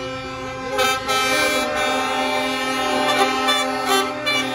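Show trucks' multi-tone air horns sounding together in a sustained chord of several pitches. They get louder about a second in, with short louder blasts near the end.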